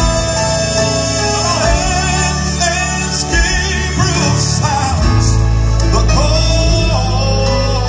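Southern gospel group performing live: a male lead voice sings with keyboard accompaniment over a heavy, sustained bass line.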